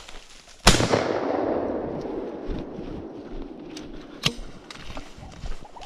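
A single Benelli shotgun shot about a second in, its report echoing and fading through the woods for a couple of seconds, followed by one shorter sharp click a few seconds later.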